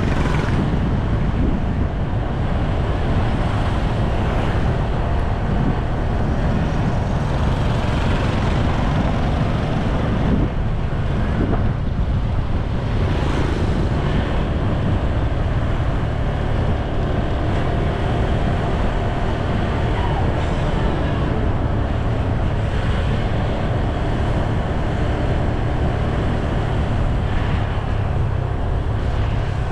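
Steady low vehicle rumble with road noise, swelling briefly a few times.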